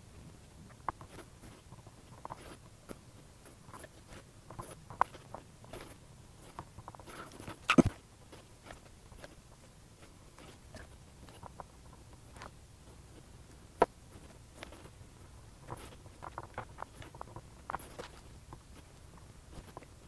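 Quiet handling noise from hands working sealant onto an aluminium oil sump extension on a wooden workbench: scattered light clicks and taps, with a louder knock about eight seconds in and a sharp tap near fourteen seconds.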